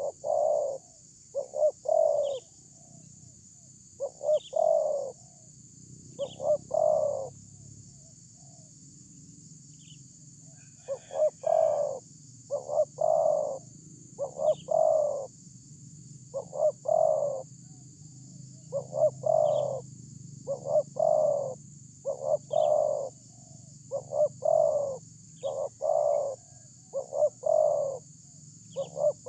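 Spotted dove cooing: its song of two or three deep coos, repeated over and over every couple of seconds, with a pause of about three seconds about a third of the way through.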